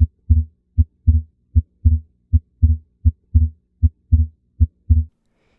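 Stethoscope recording of a normal heartbeat: about seven lub-dub pairs (S1 then S2) at roughly 80 beats a minute, low and thudding. The second sound of each pair is the closing of the aortic and pulmonary valves, here with physiological splitting of S2 on inspiration.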